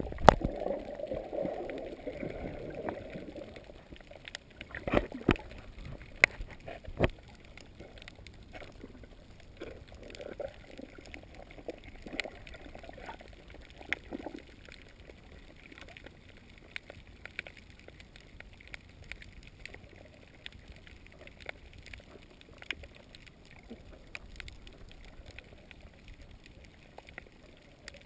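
Underwater sound picked up by an action camera, muffled: water gurgling and swirling loudly for the first few seconds, a few sharp clicks about five to seven seconds in, then a low steady hiss with scattered faint clicks.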